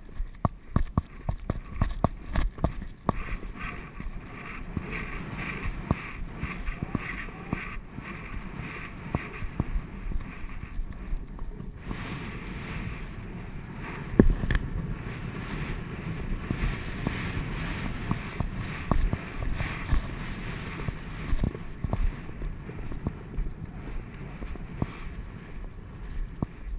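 Horse's hoofbeats on grass, heard from a camera on the rider, with wind rushing over the microphone. The sound breaks off abruptly about twelve seconds in and picks up again, with one heavier thud shortly after.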